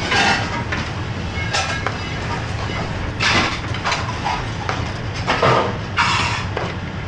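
Restaurant kitchen at a commercial gas range: a steady low rumble under the intermittent scrape and clink of a metal spoon in a frying pan as chicken is stirred into sauce, with voices in the background.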